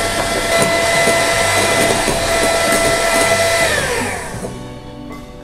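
Handheld electric mixer whirring steadily as its beaters whip egg whites. It is switched off nearly four seconds in, and its whine falls in pitch and fades as the motor winds down.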